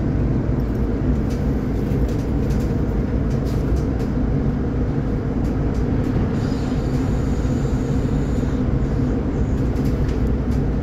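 Steady ride noise inside a moving Solaris Urbino 12 hybrid city bus: drivetrain and tyre rumble with no marked changes.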